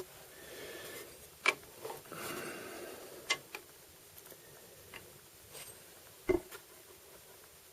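Tools and metal parts being handled during transfer-case work: a handful of sharp, irregular clicks and knocks, the loudest about a second and a half in and again near six seconds, with soft rubbing and scraping between them.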